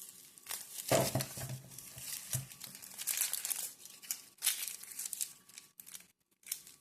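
Crinkling and rustling of packaging as produce is handled, irregular, with sharp crackles, loudest about a second in.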